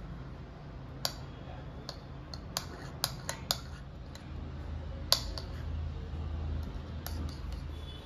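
A metal spoon clinking and scraping against a ceramic bowl while stirring sauce: a scatter of sharp clinks, several close together around three seconds in and the loudest about five seconds in, over a low steady hum.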